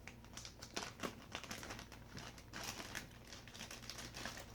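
Faint crinkling and rustling, as of packaging being handled, with scattered small clicks and taps.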